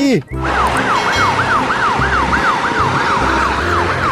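Ambulance siren wailing in a fast up-and-down sweep, about three cycles a second, starting about half a second in.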